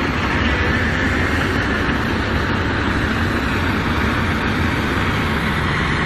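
Heavy machinery engine running steadily at an even pitch.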